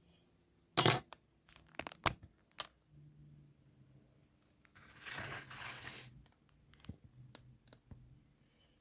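Lock parts and tools being handled on a desk while a lock is taken apart: a sharp knock about a second in, a few light clicks, then about a second of scratchy rustling.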